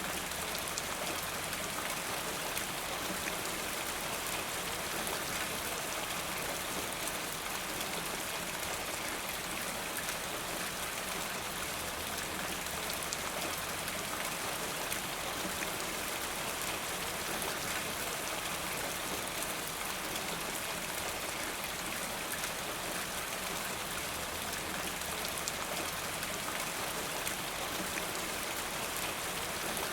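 Steady rain falling, a constant hiss of drops with many small individual drop ticks, unchanging throughout.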